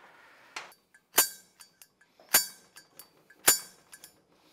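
Sharp metallic clinks of a steel hand tool striking and scraping an aluminum motorcycle-style cylinder head: three loud, ringing clinks about a second apart, with lighter ticks between them.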